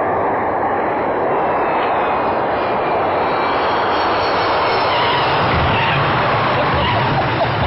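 Aircraft engine running, a loud steady rushing noise.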